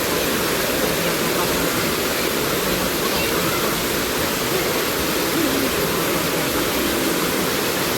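Waterfall and river water pouring, a steady, loud, even rush of falling water.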